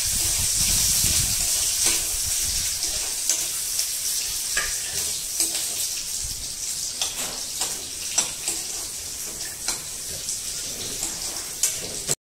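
Food sizzling in a hot iron kadai while a metal spatula stirs it, clinking and scraping against the pan about once a second. The sizzle slowly dies down and cuts off abruptly near the end.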